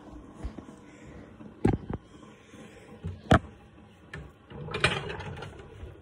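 Handling noise: a few sharp knocks and clacks, two close together about a second and a half in and a louder one a little past three seconds, then about a second of rustling near the end.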